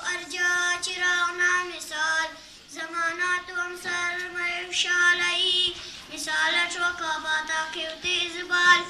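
A young girl singing a chanted poem solo, unaccompanied, in a high voice with long held notes and short pauses between phrases.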